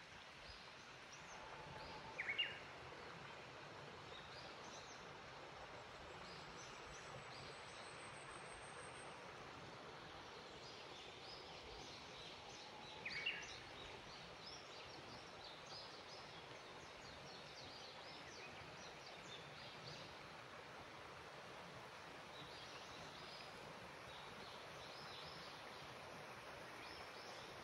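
Faint outdoor ambience: a steady hiss with many scattered high-pitched bird chirps, and two louder short bird calls, about 2 seconds and 13 seconds in.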